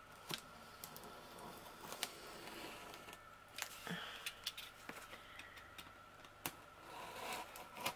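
Faint scattered clicks and taps of hands handling a taped cardboard box and a plastic utility knife, about half a dozen separate small knocks.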